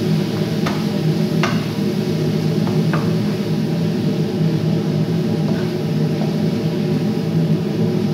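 Wooden spoon stirring chicken and vegetables in a pot, with a few sharp knocks of the spoon against the pot, over a steady low hum.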